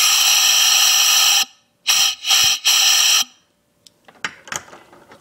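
Compressed air at 45 PSI hissing out through an opened valve of a small engine's cylinder head as it is turned over, showing the cam has the valve open: a loud rush of about a second and a half, then three shorter bursts. A few light clicks follow near the end.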